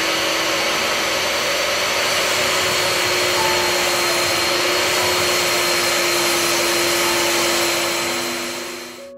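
DeWalt DW745 table saw running at full speed with its blade spinning: a steady, loud rush of noise with a faint high whine. It fades out near the end.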